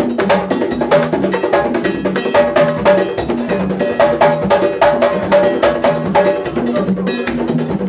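Haitian Vodou drumming: hand drums and a struck metal bell playing a fast, steady dance rhythm.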